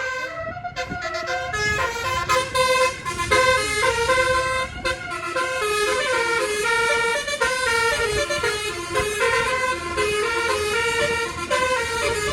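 Bus telolet basuri horn with nine notes, playing a fast tune of short notes that step up and down in pitch.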